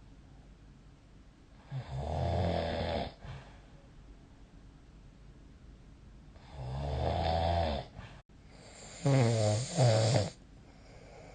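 A person snoring in sleep: three snores about four to five seconds apart. The last is the loudest and comes in two close parts.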